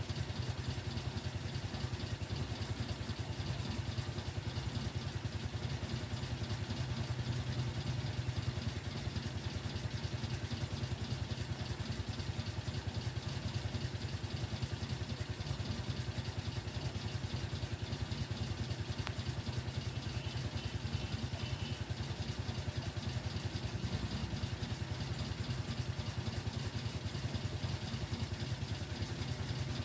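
A small engine running steadily, a low, even drone that does not change.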